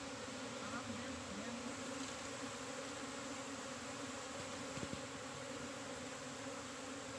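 Honey bee swarm buzzing as a steady, even hum while the bees crowd into a hive box.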